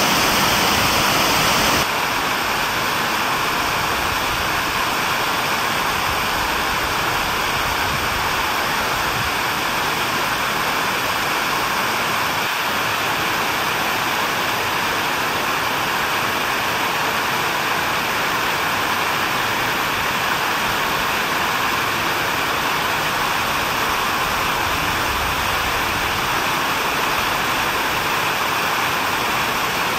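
Steady rush of falling water. It drops a little in level and brightness suddenly about two seconds in, then stays even.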